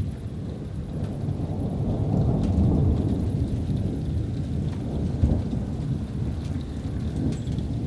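Distant thunder rumbling, swelling about two seconds in and fading, with a sharper peak a little past five seconds.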